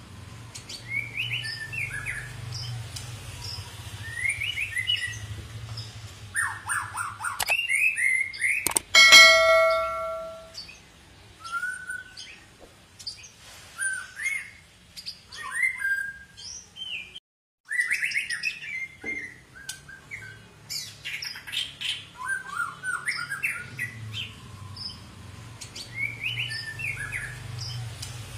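White-rumped shama (long-tailed murai batu) singing in a string of varied whistled phrases and chirps, with rising and falling notes. About a third of the way in, a loud ringing clang, the loudest sound, cuts across the song and dies away over a second or so.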